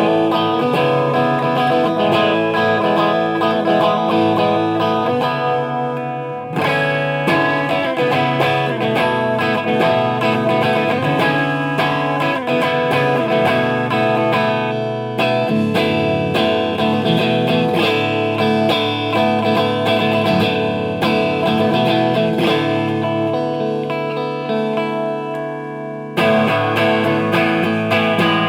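Kawai Rockoon RF-37 electric guitar played through a Marshall JCM900 amp, its clean channel's gain turned up to a light crunch: loose riffs and chords, with brief pauses about six seconds in, around the middle and near the end.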